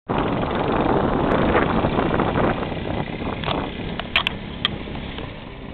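Dune buggy running fast, its noise mixed with wind on the microphone, loud at first and fading over several seconds as it pulls away. A few sharp clicks come about four seconds in.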